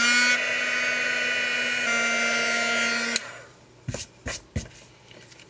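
Embossing heat gun running steadily for about three seconds, melting embossing powder on a paper tag, then switched off. A few light knocks follow.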